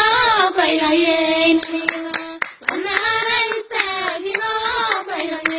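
High female voices singing a Somali dhaanto song, holding long notes, with sharp hand claps on the beat.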